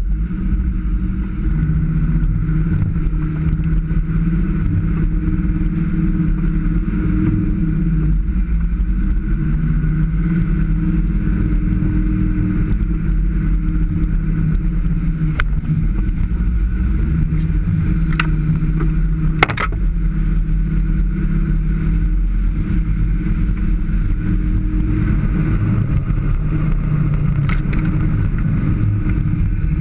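Off-road 4x4's engine running steadily at low revs, its pitch rising and falling a little, with a few sharp knocks, the loudest about two-thirds through.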